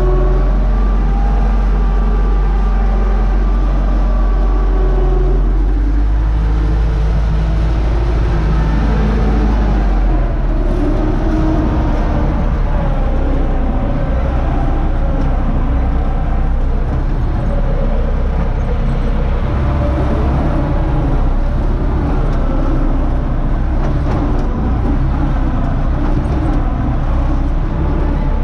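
Universal 650 tractor's four-cylinder diesel engine running steadily under load while pulling a three-furrow plough, heard from inside the cab. The engine note shifts about ten seconds in.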